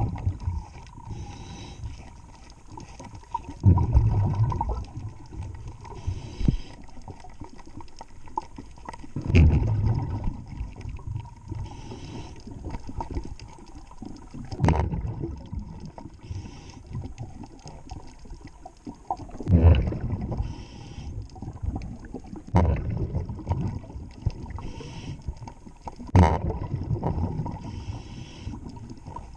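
Underwater, a diver's breathing regulator exhales bubbles in low, rumbling bursts every four to six seconds, with quieter water noise between breaths.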